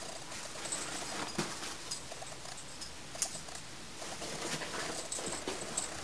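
Two Airedale terriers play-fighting on a giant beanbag: scuffling and rustling, with a few sharper clicks, the loudest about a second and a half and about three seconds in.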